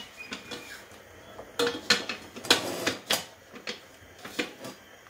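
A utensil knocking and scraping against a stainless steel cooking pot, a string of irregular clinks with the loudest in the middle, some ringing briefly, as cooked meat and chickpeas are lifted out of the soup broth.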